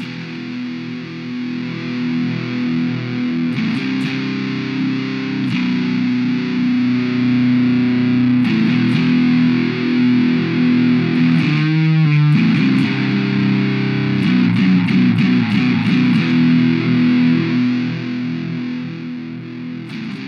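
Electric guitar played through an Orange Fur Coat germanium fuzz/octave pedal: fuzzy, distorted chords and riffs, held and ringing, with a wavering slide in pitch about halfway through.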